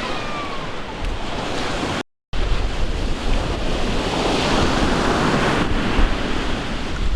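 Sea waves washing on the shore with wind buffeting the microphone, a steady rushing noise with low rumble. The sound cuts out completely for a moment about two seconds in.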